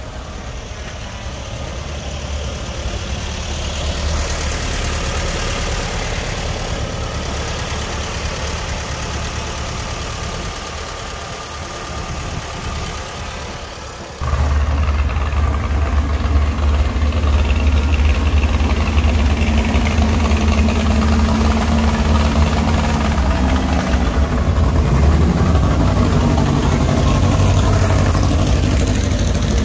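Classic Volkswagen Beetles' air-cooled flat-four engines running as the cars drive past at low speed. The engine sound jumps suddenly louder about halfway through and stays louder.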